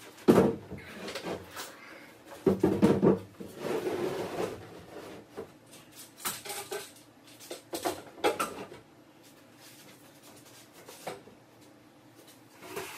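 Irregular knocks, bumps and clatter of work on a wooden cabinet, loudest about half a second in and again around three seconds in, with lighter taps scattered after.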